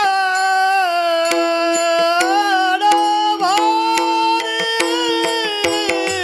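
Devotional abhang music: a long held melody that slides and dips, over a steady drone, with scattered sharp cymbal clicks.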